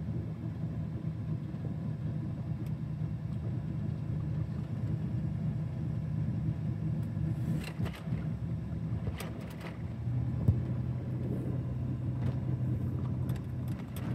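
Vehicle running down a wet road, heard from inside the cabin: a steady low engine and road hum, with tyre hiss from the wet pavement. The engine's pitch drops about ten seconds in, and a few brief clicks come a little before that.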